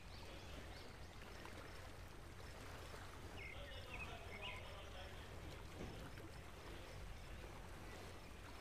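Faint background noise of the recording room: a steady low hum under a light hiss, with a few faint high chirps a little past the middle.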